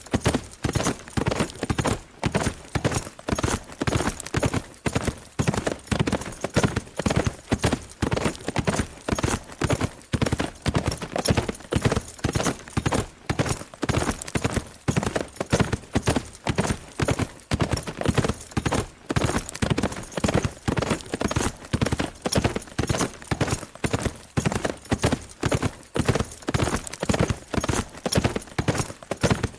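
Horse galloping fast at a steady pace: hoofbeats fall in evenly repeating groups with no change in speed.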